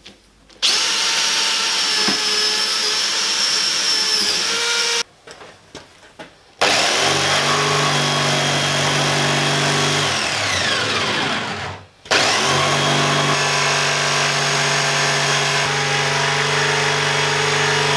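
A cordless drill bores through a thick wooden tabletop for about four seconds. After a short pause a jigsaw cuts through the wood along a circular line; the saw winds down and stops just before twelve seconds in, then starts again and keeps cutting.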